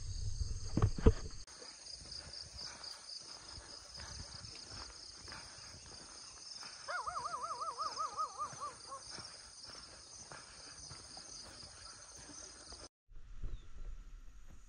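Insects shrilling steadily in the grass and trees. About seven seconds in, a bird gives a wavering call for about two seconds. A few knocks come in the first second and a half.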